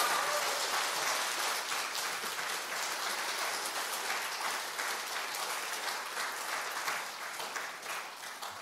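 A congregation applauding, the clapping loud at first and slowly dying away toward the end.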